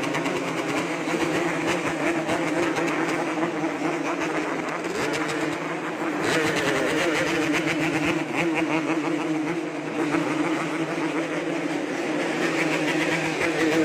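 Yamaha RX-King's two-stroke single-cylinder engine revved hard and held at high revs, its pitch wavering with the throttle and jumping up about six seconds in.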